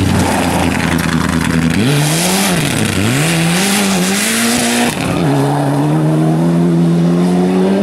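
Rally car engine driven hard, its pitch rising and dropping several times with throttle blips and gear changes, with tyres squealing and skidding. About five seconds in the pitch drops with a gear change, then climbs steadily as the car accelerates.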